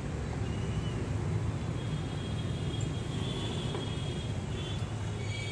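Steady low background rumble, like street traffic, with faint thin high tones coming and going.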